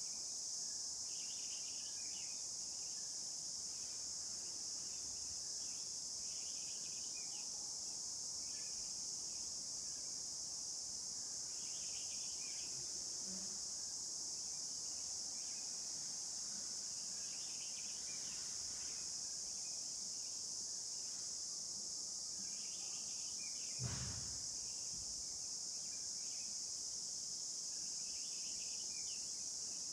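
Steady high-pitched chorus of crickets, with short chirps every few seconds and a single dull thump about three-quarters of the way through.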